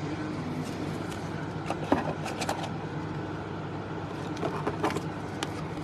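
Trading cards and pack wrappers being handled: short spells of crinkling and card-sliding clicks about two seconds in and again near the end, over a steady low background hum.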